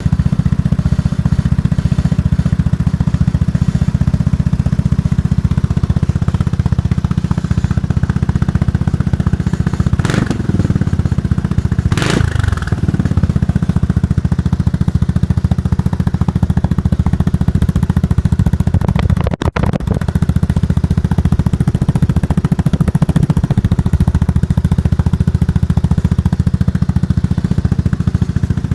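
Sym GTS 300 Evo scooter's single-cylinder four-stroke engine idling through an aftermarket exhaust, with a steady low, pulsing exhaust note. Around ten and twelve seconds in, two quick throttle blips briefly raise the revs, which then fall back to idle.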